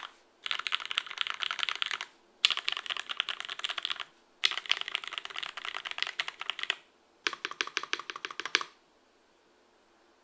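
Fast typing on an Ogre by zekk.works custom mechanical keyboard with lubed vintage Cherry MX Black linear switches on an aluminum plate, no foam. The keys clatter in four bursts of one to two seconds with short pauses between, stopping well before the end.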